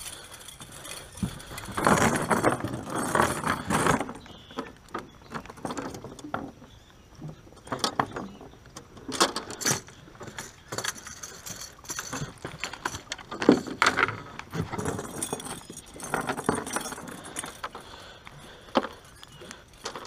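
Metal jangling and clinking of a chain fish stringer and hooks as a freshly caught bass is handled, coming in irregular bursts with knocks and rustling between.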